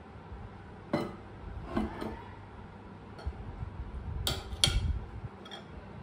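Ceramic dishes and a metal spoon clinking as fish curry is scraped and poured from a plate into a bowl. There are a few soft knocks in the first two seconds, then two sharp clinks in quick succession just past four seconds in.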